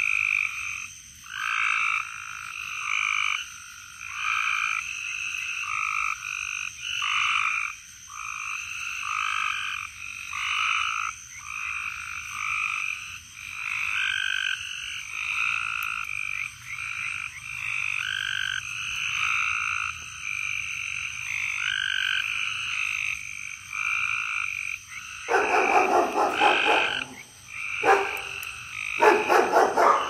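A chorus of frogs calling on a summer night, with overlapping calls, each under a second long, following one another about once a second. In the last few seconds a much louder, rougher call comes in close by several times.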